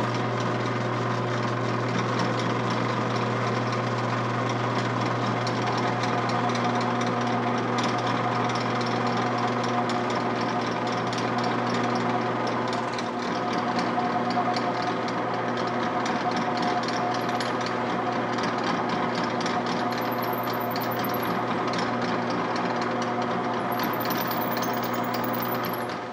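Benchtop drill press running steadily with a constant low hum, boring holes through a thick wooden block.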